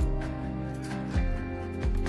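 Background instrumental music with a steady beat: a deep kick drum roughly every second under sustained chords.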